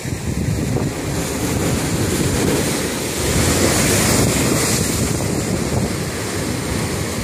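Sea waves surging and breaking against rocks and the wall of a seaside saltwater pool, the biggest break about four seconds in with a hiss of spray.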